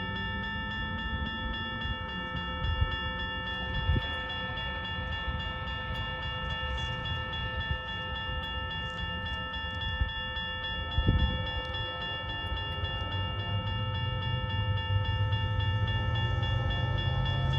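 Dual Safetran Type 1 electronic crossing bells ringing steadily on several pitches at once, warning of an approaching train. A low rumble builds over the last few seconds as the train nears.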